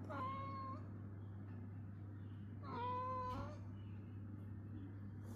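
Domestic cat giving two steady, even-pitched hum-like calls: a short one at the start and a longer one of about a second near the middle.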